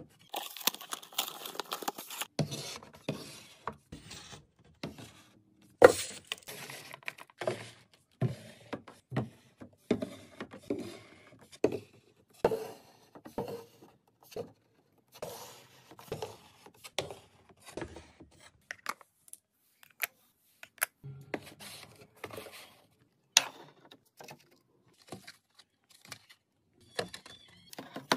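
Plastic toiletry bottles and small boxes being set down on a shelf and slotted into a clear plastic bin: a steady string of taps, clicks and light scrapes, with one sharper knock about six seconds in.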